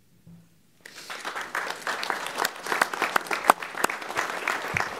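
Applause from a group of people clapping by hand, starting about a second in and continuing steadily.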